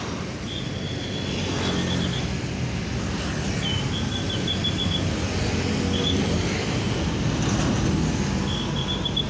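Road traffic noise with heavy vehicle engines running steadily. Over it come several short runs of rapid, high-pitched chirps, about eight a second.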